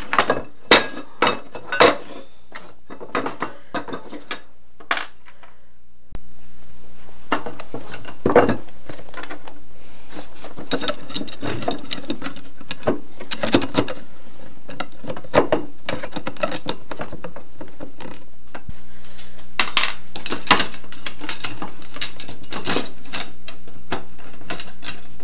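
Metal clinks, taps and knocks of screws, hex wrenches and black aluminium extrusion rails being handled as a frame is fitted together and bolted up, over a faint steady hum.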